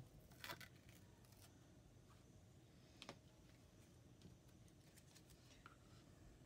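Near silence: low room hum with a few faint short clicks and taps, the clearest about three seconds in.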